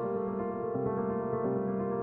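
Background music: soft, sustained piano or keyboard notes.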